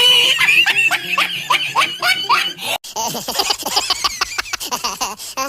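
A person laughing in quick repeated bursts, with a short break about halfway through.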